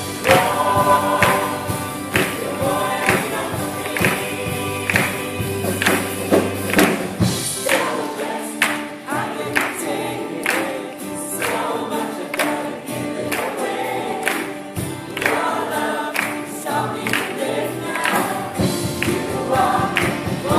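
A live worship band plays a contemporary Christian worship song, with several singers together over acoustic and electric guitars, keyboard and drums. The low bass drops out about a third of the way in while the singing and beat carry on.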